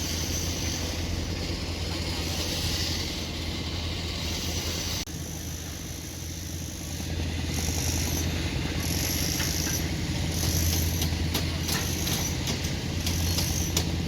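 Heavy diesel construction machine, such as a bulldozer, running steadily with a low engine hum. From about eleven seconds in there are scattered light clanks.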